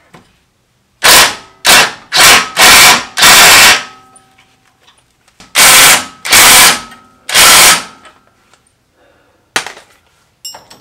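Cordless impact wrench hammering in short, loud bursts, five in quick succession and then three more after a pause, as it unwinds the threaded rods of the coil spring compressors to release a newly fitted front coil spring.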